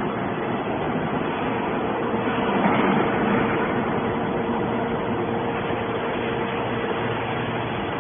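Heavy hydraulic scrap metal baler running: a steady mechanical din with a faint hum through it, swelling briefly about three seconds in.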